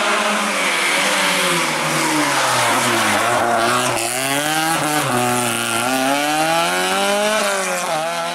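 Opel Manta rally car's engine at full load. The revs drop as it brakes into a hairpin about three seconds in, then climb hard again through the gears, with shifts at about five and seven and a half seconds.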